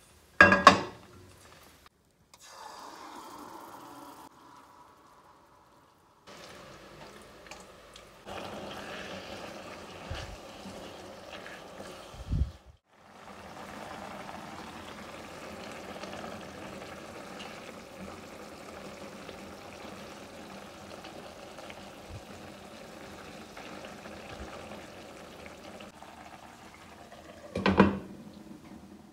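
Chicken pieces simmering in their watery spiced marinade in a frying pan, a steady bubbling. There is a brief loud noise near the start, and near the end a glass lid set onto the pan with a short clatter.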